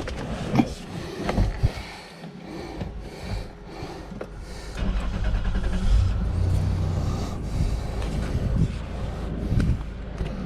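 A few knocks and thumps, then a car engine starts about five seconds in and runs steadily at idle.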